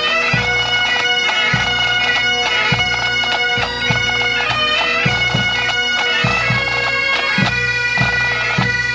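Bagpipes playing a tune over their steady drone, with low drum beats every second or so.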